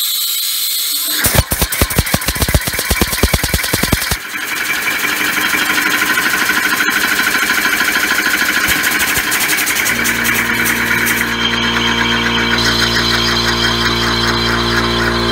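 Homemade compressed-air engine test-running with its oval ring rotor: a loud hiss of air, with a fast run of knocks for about three seconds near the start. After that a steady rushing hiss as the ring spins fast, and a low steady hum joins about ten seconds in.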